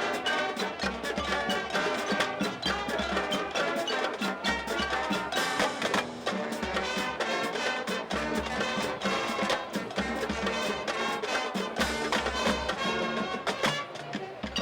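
Music with a busy percussive beat: many sharp, rhythmic strikes over pitched instruments.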